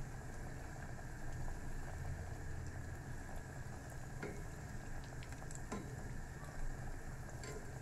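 Breaded cauliflower pieces deep-frying in hot oil in a small stainless-steel pot: a steady bubbling sizzle. A few light clicks of the tongs against the pot come as the pieces are turned.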